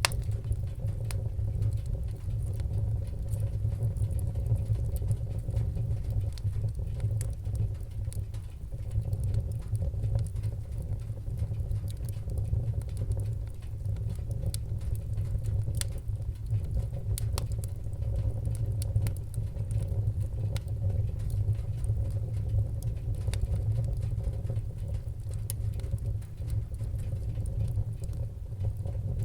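Fireplace fire crackling, with irregular small pops and snaps over a steady low rumble of the flames.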